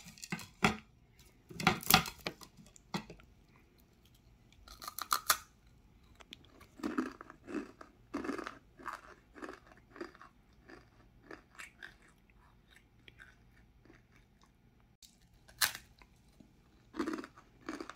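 A block of dry, seasoned instant ramen noodles snapped apart by hand with a few sharp cracks in the first couple of seconds, followed by crunching as the crisp noodles are bitten and chewed, with another sharp crunch near the end.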